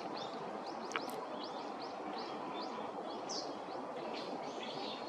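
A bird calling: a rapid series of short, high, thin notes, about three a second, over steady background noise. A brief click comes about a second in.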